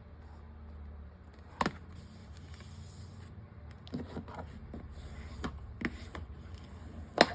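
Handling noise at a craft table: a few short, sharp taps and knocks as paper, book boards and a glue stick are moved and set down, the loudest near the end, over a steady low hum.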